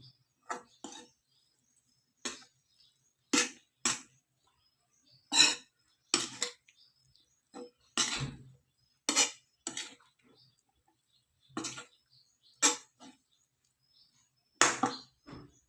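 A metal utensil clinking and scraping against cookware in about fifteen separate short strokes at an uneven pace, with brief silences between them.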